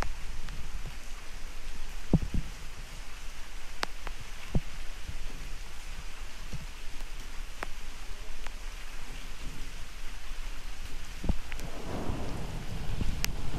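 Steady rain with scattered louder drops landing close by, over a low thunder rumble that swells near the end.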